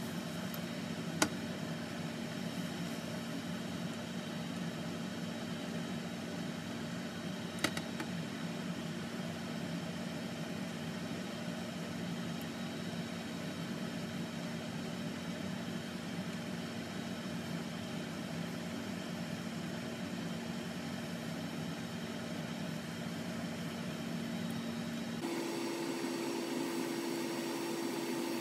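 Steady mechanical hum of a kitchen fan, with two sharp clicks of utensils against a pan, about a second in and again about eight seconds in. Near the end the hum changes abruptly to a different steady drone with a higher tone.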